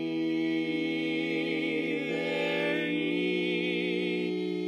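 Barbershop quartet of four male voices singing a cappella, holding one long sustained chord with vibrato in the upper voice; one part shifts near the end.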